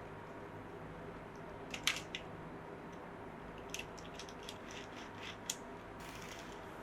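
Scattered light clicks and taps of a model train and its packaging being handled, over a steady low hum. There is a small cluster of clicks about two seconds in, a looser run of them a little later, and a brief soft rustle near the end.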